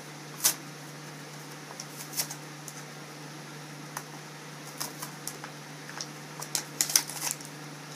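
Plastic packaging of a diecast car being handled and pulled apart: scattered sharp crinkles and clicks, busiest and loudest about seven seconds in, over a steady low hum.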